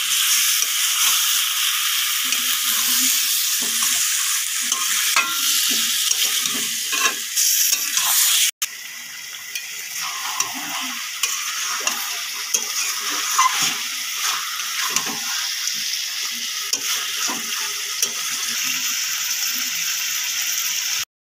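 Marinated chicken pieces sizzling and frying in hot oil in a kadai (wok), being stirred and turned with a metal spatula, with scattered scrapes and clinks of the spatula on the pan. This is the kosha stage, sautéing the chicken in its spice paste. There is a brief break about a third of the way in, after which the sizzling goes on a little quieter.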